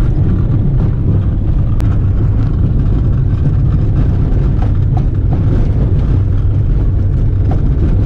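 Small car driving on a rough dirt road, heard from inside the cabin: a loud, steady low rumble of engine and tyres on the uneven surface, with a few light knocks from the car shaking.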